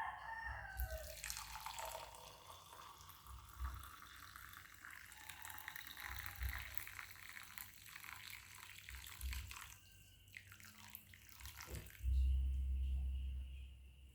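Water running and splashing for about eleven seconds, with a short lull near the end. The tail of a rooster's crow is heard at the very start, and a low rumble comes in near the end.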